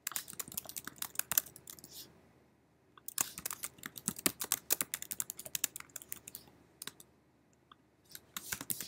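Typing on a computer keyboard: quick runs of key clicks in three bursts with pauses between, the last one short and near the end.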